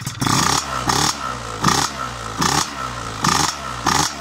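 Piaggio Zip SP's two-stroke engine, fitted with a Malossi 172 cc kit, a 35 mm Keihin PWK carburettor and a PM59 expansion-chamber exhaust, revved in six quick throttle blips about one every 0.75 s. Each blip rises and falls back to idle. The engine is still warming up from cold.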